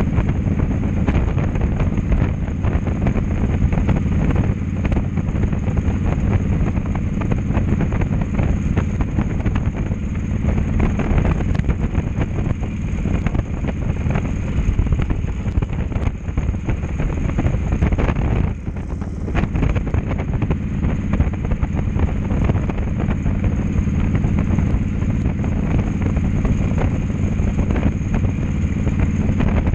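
Cruiser motorcycle engine running steadily at road speed, with wind buffeting the microphone. The sound briefly drops once, about two-thirds of the way through.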